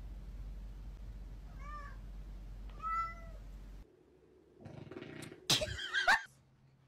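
Domestic cat meowing twice, short meows about two and three seconds in. After the sound cuts off, a louder, sudden burst of noise with wavering tones comes about five to six seconds in.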